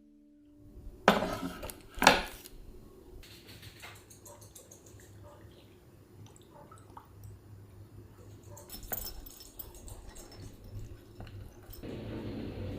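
Kitchenware clattering: two loud clanks of a pan or dish about one and two seconds in, then small clinks and taps of dishes and utensils.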